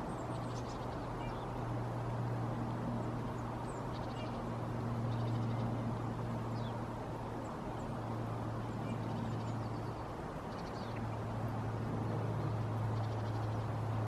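Faint, short, high chirps and brief rapid chirp runs of small birds, scattered every second or two, over a steady low hum and rumble.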